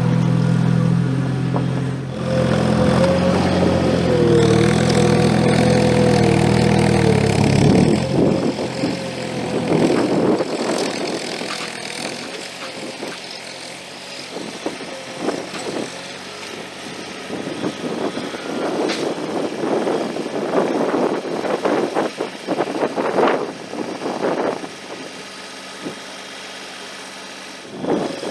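Gehl 4835 SXT skid steer working snow: its engine runs hard for about eight seconds with a wavering whine over it, then eases off. For the rest of the time a quieter engine runs under irregular scraping and knocking.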